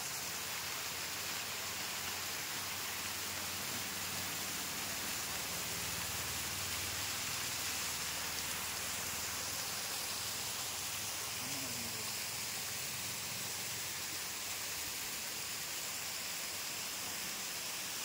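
Steady rush of a small waterfall pouring down a rock face and splashing onto the rocks below.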